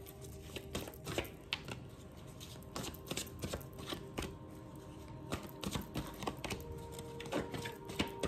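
A deck of oracle cards being shuffled by hand: irregular soft clicks and slaps of card edges against each other, a few a second.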